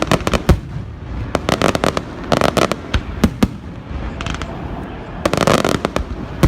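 Fireworks going off: a run of sharp bangs and crackles, densest about one and a half, two and a half and five and a half seconds in.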